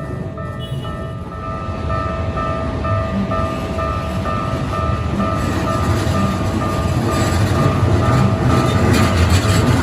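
Level-crossing warning bell ringing, a repeated two-tone ding about twice a second, as a Keikyu train approaches the crossing. The train's low rumble and wheel noise grow steadily louder.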